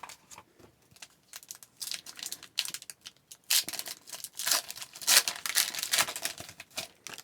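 Foil wrapper of a hockey card pack crinkling and tearing open in the hands, a dense crackling that builds to its loudest midway and stops near the end.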